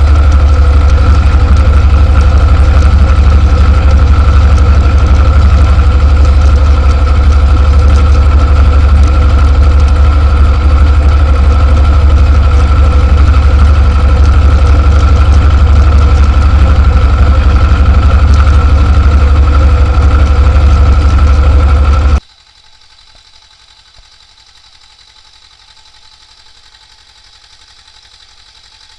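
T-25 tractor's two-cylinder air-cooled diesel running steadily and loud, then cutting off suddenly about three-quarters of the way through, leaving only a faint background.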